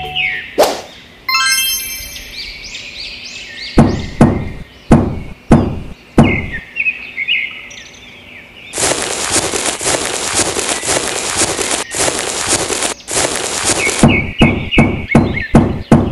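Birds chirping, then a short high ringing chime, a run of about six sharp knocks, a long stretch of steady hissing noise, and another quick run of knocks near the end.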